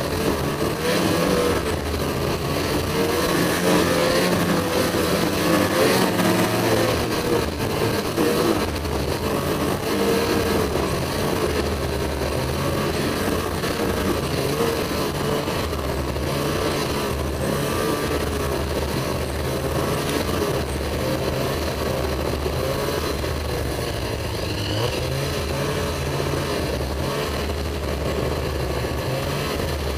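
Ski-Doo Summit snowmobile engine running as the sled rides along, its pitch wavering up and down with the throttle over a steady rush of noise.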